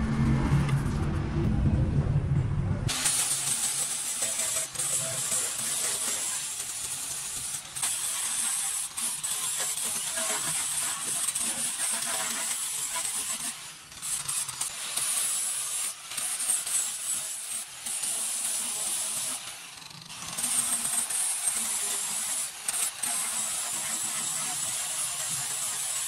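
Electric angle grinder with an abrasive disc running against the steel of a repaired rocker panel, grinding down the weld seam, from about three seconds in. It gives a steady high hiss that dips briefly a few times as the disc is eased off the metal.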